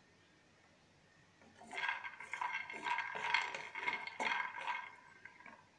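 Raw peanuts rattling and clicking against a dry metal frying pan as they are dry-roasted and moved about, with a light metallic ring from the pan. The rattling starts about a second and a half in and dies away just before the end.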